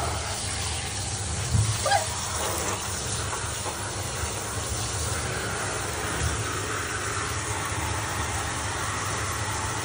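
Handheld shower head spraying water over a wet dog in a bathtub: a steady hiss of running water, with two short louder sounds about one and a half and two seconds in.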